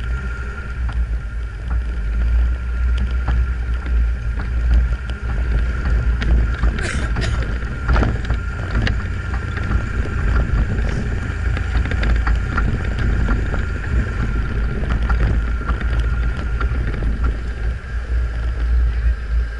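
Lifted Suzuki Sidekick's four-cylinder engine running as it drives slowly over snow, heard with heavy low wind rumble on the outside-mounted microphone. A steady high tone runs underneath, and a few sharp clicks and knocks come about seven to eight seconds in.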